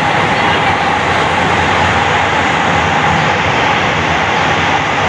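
Jabodebek LRT light-rail trains running on the elevated track: a steady loud rush with an even hum, heard from inside a car while another train passes alongside.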